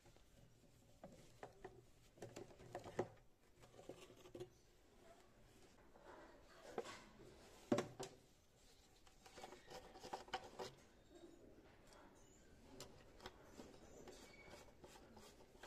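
Faint clicks, taps and scrapes of a lawn mower engine's plastic shroud and small metal parts and tools being handled during disassembly, with one sharper knock about eight seconds in.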